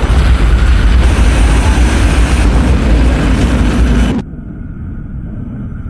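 Very loud, sustained blast of roaring noise with a heavy low end, from a deliberately loud noise source used for a car cabin-quietness test. About four seconds in it cuts off abruptly, leaving a much fainter low rumble.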